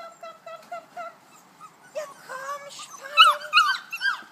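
Litter of young Kuvasz puppies whining and squeaking in short, high, repeated cries, with louder yelps about three seconds in.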